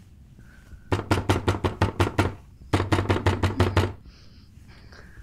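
Insistent, rapid knocking on a door: two fast volleys of about ten blows each, roughly seven or eight a second, with a short pause between them.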